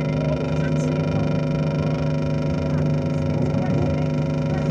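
Tractor engine running at a constant, steady drone while it tows a wrecked banger off the track.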